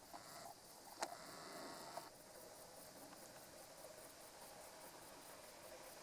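Faint, steady high-pitched chirring of crickets in the background, with three short sharp clicks in the first two seconds, about a second apart.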